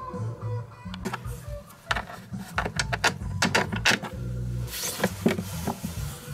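Hands working metal lock parts inside a BMW K1200LT top case: a run of sharp clicks and rattles starting about a second in, over background guitar music.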